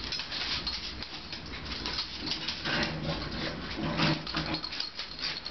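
A dog playing tug of war with a toy: scuffling and rattling throughout, with two short low growls about three and four seconds in.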